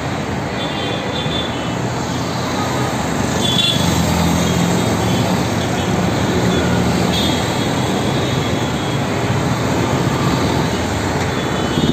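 Steady traffic noise from vehicles passing close by on a busy road: cars, a bus and a scooter. A bus engine's low drone grows louder from about three seconds in as the bus goes past.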